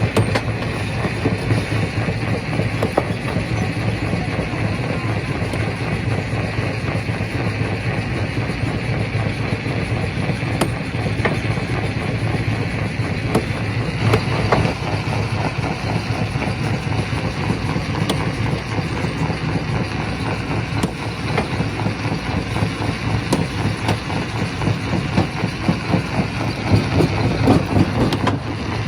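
Quarry primary rock crusher running steadily: a heavy, continuous low hum and rumble with scattered sharp knocks.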